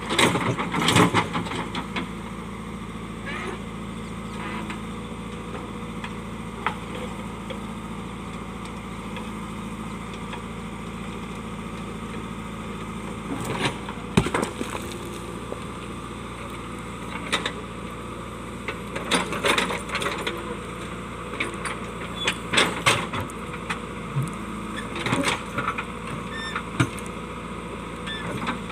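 JCB digger's diesel engine running steadily under load, with irregular clusters of sharp knocks and cracks as rock is struck and broken, the loudest about a second in.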